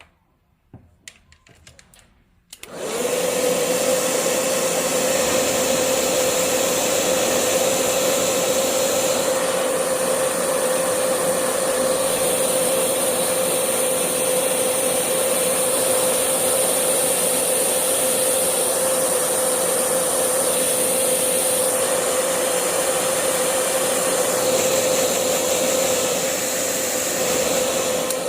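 Electric hair dryer switched on about two and a half seconds in and running steadily with a constant hum, blowing to dry the wet ink and colour on a painting.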